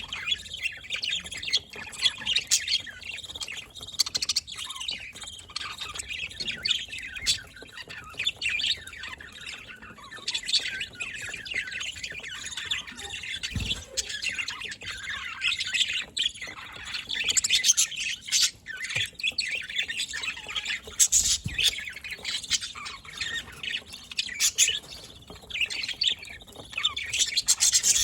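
Budgerigars chirping and chattering together, with frequent short sharp squawks.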